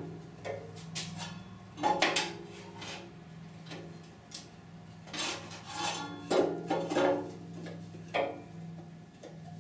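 Irregular metallic clanks and scrapes as a 16-gauge sheet-steel flange is levered over by hand in a sheet metal brake, with a wooden block and a long-handled hand tool knocking against the metal. The loudest knocks come about two seconds in and from about five to seven seconds in, over a steady low hum.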